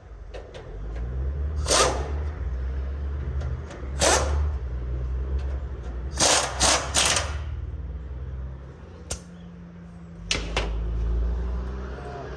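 Half-inch-drive Earthquake impact wrench, turned down to a lower speed, running on bolts with an impact socket fitted. It hums through two long runs, with several short loud strokes of hammering or metal clanks on top.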